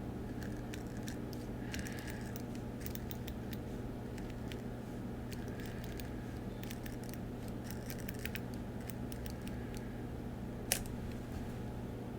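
Deco Rush decoration roller tape being run across planner paper and lifted off: scattered small clicks and crackles of the dispenser and paper, with one sharper click near the end, over a steady low hum.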